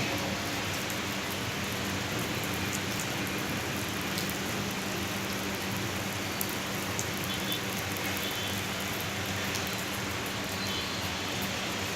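Steady rain falling and splashing on surfaces, with scattered sharp drop hits, over a faint low hum.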